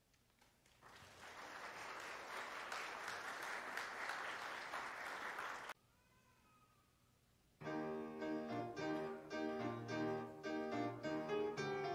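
Audience applauding for about five seconds, cut off abruptly. After a short quiet gap a piano starts playing a rhythmic accompaniment.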